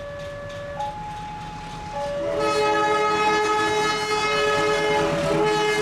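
Level-crossing warning signal alternating between two tones. From about two seconds in, a passenger train's horn sounds a long, loud chord, breaking briefly near the end.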